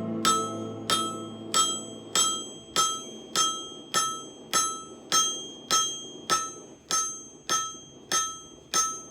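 Hand hammer striking hot steel on an anvil in a steady rhythm, a little under two blows a second, each blow ringing, while the wedge is forged and thinned into an axe head.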